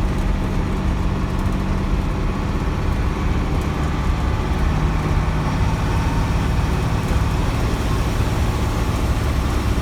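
International DT466 inline-six turbo diesel in a 1995 school bus, running steadily. The owner says the turbo is pretty much gone.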